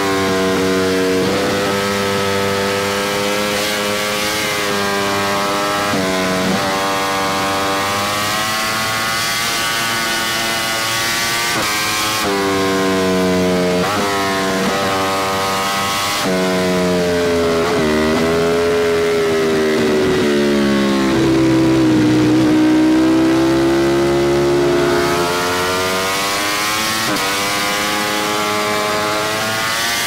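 Ducati Panigale V4 SP2's V4 engine through an Akrapovic slip-on exhaust, ridden under hard throttle. The engine note climbs with the revs and drops sharply at each gear change, several times over. Through the middle it falls away slowly, then pulls up again near the end.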